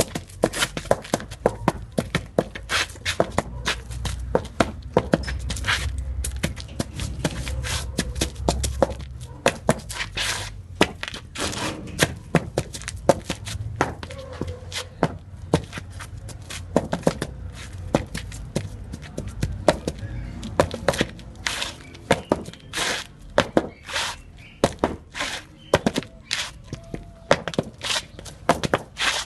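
Zapateado footwork: hard shoe strikes on a floor in quick, irregular rhythmic patterns, several hits a second, with heavier thuds in the first third.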